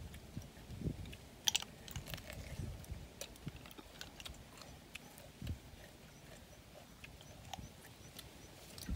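Small, sparse clicks and clinks of cooked snail shells being picked from a woven basket and knocking together, the sharpest about one and a half seconds in, with a few soft low thumps.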